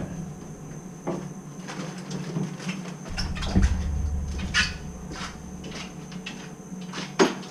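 Scattered light clicks and knocks of handling, over a steady faint hum with a thin high tone; a low rumble starts about three seconds in and stops near the end.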